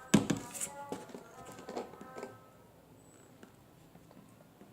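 Background music with held notes and a sharp knock just after the start; the music fades out about halfway through, leaving faint room tone.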